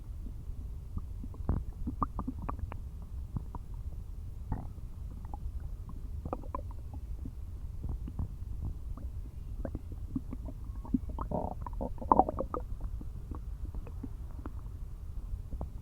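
Empty stomach growling and gurgling from hunger after a day without food: a steady low rumble scattered with short pops and squelches, with a louder run of gurgles about eleven to twelve seconds in.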